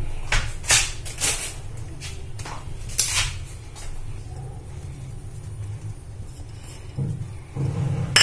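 Kitchen handling sounds at a counter: a few short taps and rustles in the first three seconds and more near the end, over a steady low hum.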